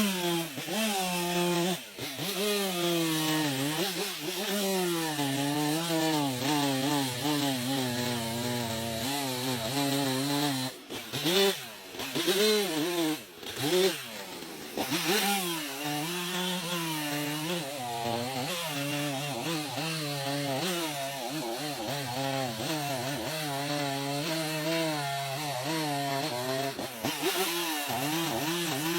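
Chainsaw running while cutting wood, its engine pitch wavering up and down under load. About halfway through, the engine speed jumps and drops sharply a few times.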